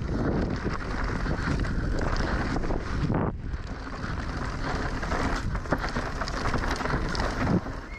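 Wind rushing over the microphone of a mountain bike descending a trail fast, with the bike knocking and rattling over rough ground. The rush drops briefly about three seconds in.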